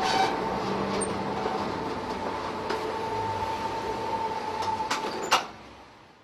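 Steady mechanical hum with a tone, which stops with a sharp click about five seconds in; the sound then fades out.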